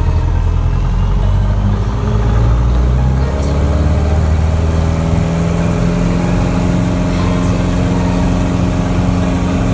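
Cessna 177B Cardinal's four-cylinder Lycoming engine running. Its pitch rises about three seconds in and then holds steady at higher revs.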